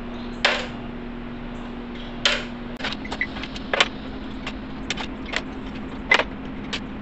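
Metal mold parts and small hardware clinking and clattering on the bench as bait molds are taken apart and the pieces set aside: a dozen or so sharp clinks, some ringing briefly, over a steady low hum.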